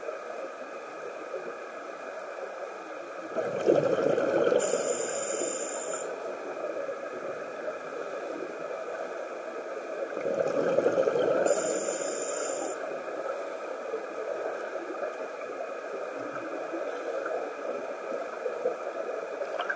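Scuba regulator bubbles heard underwater: a steady watery hiss with two louder surges of bubbling, about seven seconds apart, each ending in a short sharp hiss.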